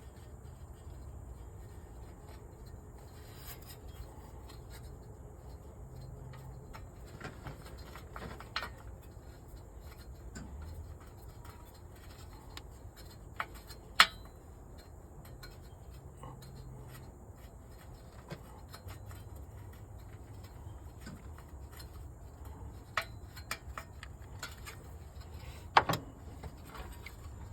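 Metal hand tools working screws out of a diesel engine's unit-pump housing: scattered light metallic clicks and rubbing, with a sharper clink about halfway through and another near the end.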